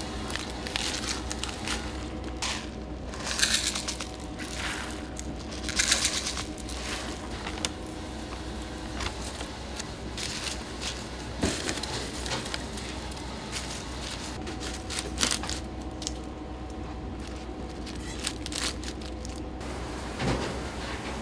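Restaurant kitchen food preparation: irregular bursts of crackling and rustling over a steady machine hum.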